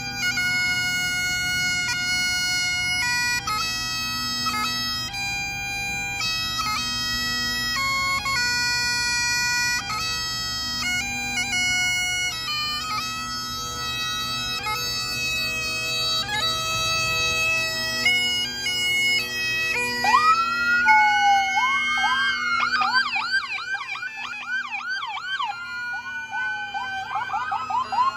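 Bagpipes playing a slow tune over a steady drone; about twenty seconds in they give way to police sirens, a rising wail and then a fast yelp, with more than one siren sounding together.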